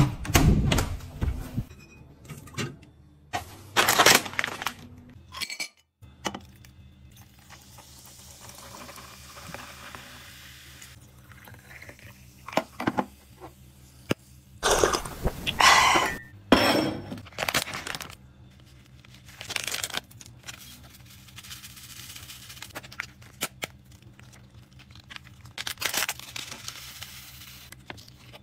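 Scattered handling sounds of food preparation: a metal door latch clicking as the door is opened, then a run of short clinks, knocks and rustles of glass, dishes and packaging, over a faint steady hum.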